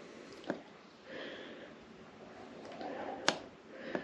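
Two sharp clicks about three seconds apart, the second louder, from buttons being pressed while the meter readings are reset, with soft handling and breathing noise between them.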